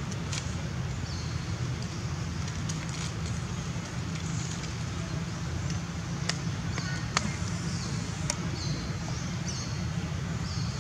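Steady outdoor background noise with a low rumble, a faint high hiss that comes and goes, and a few sharp clicks in the second half.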